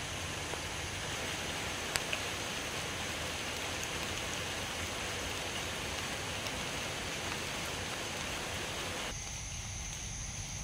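Steady hiss of water, with one sharp click about two seconds in; the hiss turns abruptly quieter and duller near the end.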